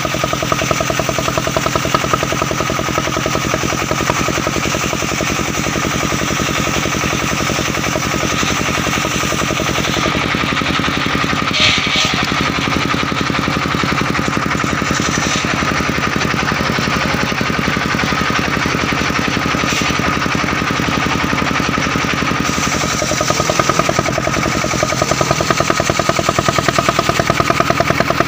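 Engine of a mobile circular sawmill running steadily with a rapid, even firing beat and a constant whine above it. Near the end the sound grows louder and brighter.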